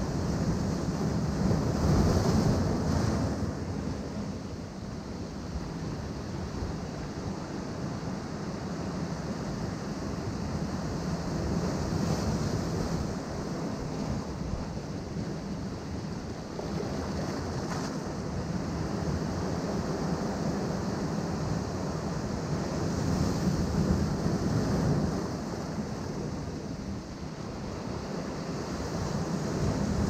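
Ocean waves breaking and washing among shoreline rocks, a continuous surging wash that swells several times, with wind buffeting the microphone.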